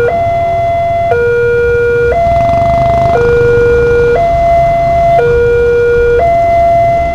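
Railway level-crossing warning alarm from the loudspeaker on the crossing post: a steady electronic two-tone, high then low, each tone about a second long. It is still sounding as the boom barrier lifts. Motorcycle engines run underneath.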